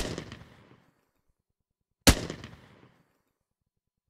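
A recorded gunshot played back twice, about two seconds apart: each a sharp crack with a short ringing tail that dies away within a second. The shell-casing sounds have been cleaned out of it with spectral repair.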